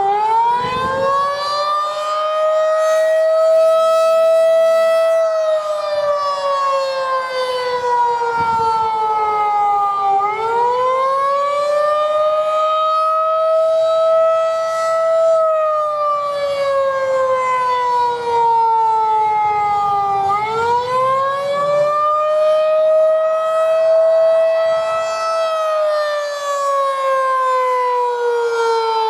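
Federal Signal 2001-DC outdoor warning siren, DC-powered, sounding a wail: the pitch climbs quickly, holds for a few seconds, then slides slowly down, repeating about every ten seconds, three times over.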